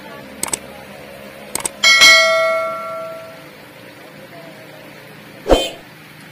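Subscribe-button animation sound effect: a few quick mouse clicks, then a notification-bell ding that rings out and fades over about a second and a half. A short sharp sound comes near the end.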